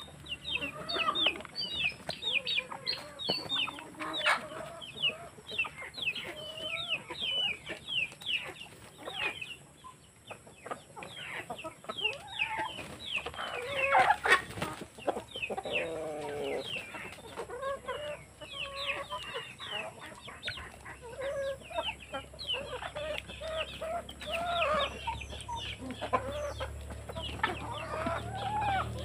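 A flock of chickens clucking and calling continuously as they feed, with many quick short calls and one louder, drawn-out call about halfway through.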